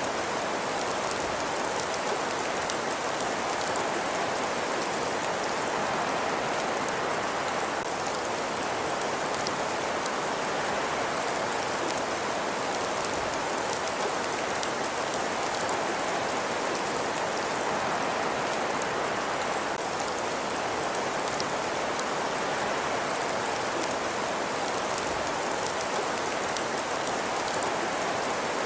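Steady fireplace ambience: an even hiss of a burning fire with faint scattered crackles and ticks.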